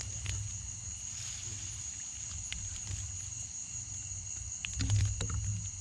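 Crickets trilling steadily at a high pitch, over a low rumble with scattered clicks and rustles. About five seconds in comes a louder thump with a few sharp clicks.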